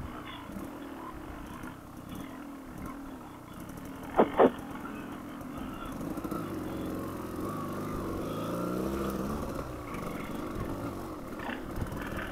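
Dual-sport motorcycle engine pulling slowly along a dirt trail, the revs rising and falling as the rider works the throttle, with more throttle through the middle of the stretch. Two short, loud sharp sounds come about four seconds in.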